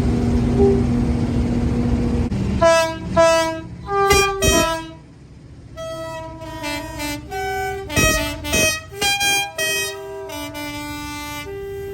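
A train passing with a steady rumble and a held low tone. About two and a half seconds in, its two-tone horn starts sounding a run of short blasts, high and low notes alternating, with a brief lull near the middle.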